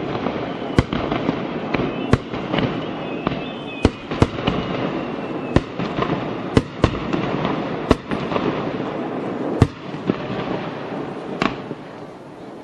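Fireworks going off: sharp bangs at irregular intervals over a continuous dense crackle. The crackle thins out near the end.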